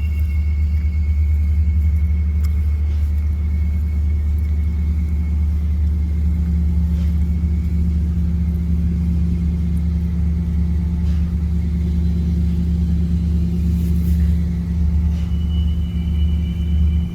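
Steady, loud low rumbling drone with no clear source, the unexplained sound first taken for trains, with a faint steady high-pitched tone above it.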